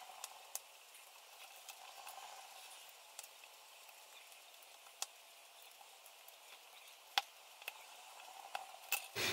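Faint, scattered small clicks and taps as the iPhone 5S display's three flex-cable connectors are pressed onto the logic board with a small tool, the sharpest click about seven seconds in.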